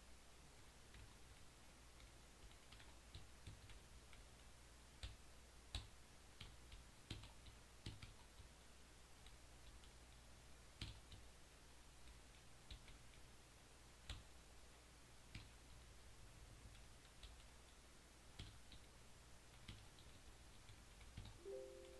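Near silence: faint, irregular clicks of computer controls over a low steady hum, with a few short pitched tones right at the end.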